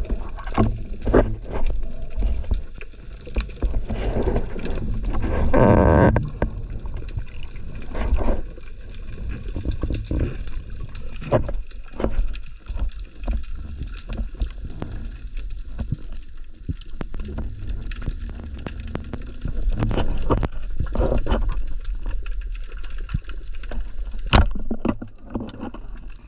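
Underwater sound of water moving around a diver's camera, with scattered sharp clicks and knocks and a louder rushing swell about five to six seconds in.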